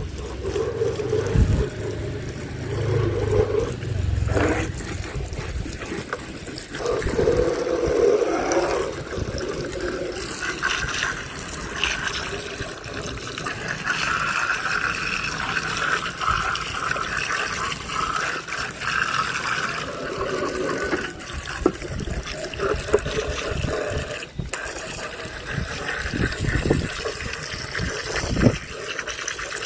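Running water splashing as a muddy toy car is washed, with a few short knocks.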